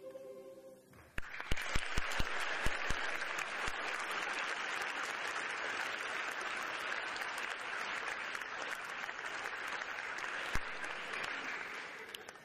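Concert audience applauding, starting about a second in with a few sharp close claps, then steady, fading near the end. The last held chord of the music dies away just before the clapping starts.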